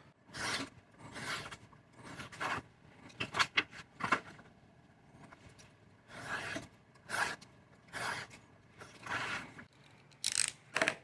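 A knife blade drawn along a straight edge, slicing through leather to cut a strap: a series of short scraping strokes, one after another, with brief gaps between passes.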